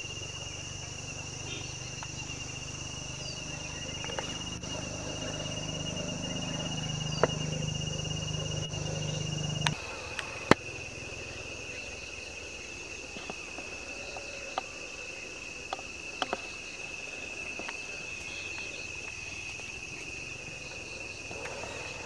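Steady high-pitched insect shrilling, a constant fine-trilled tone with a fainter higher band above it. A low rumble underneath cuts off suddenly about ten seconds in. A few sharp clicks are scattered through the middle.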